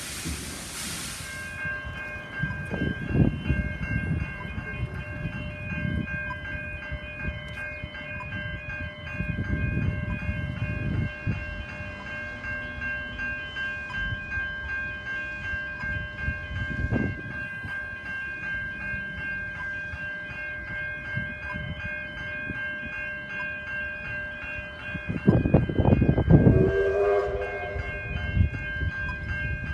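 Level crossing warning bells ringing steadily as the steam locomotive R761 approaches, with irregular low rumbles. About 26 seconds in, the locomotive gives a short steam whistle blast.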